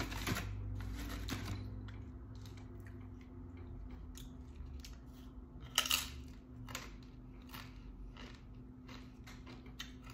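Tortilla chip bitten with one sharp crunch about six seconds in, followed by smaller crunches as it is chewed.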